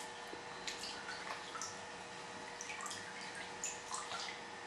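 A plaster of Paris bandage being wetted in a basin of warm water and lifted out, with scattered light drips and small splashes, over a faint steady hum.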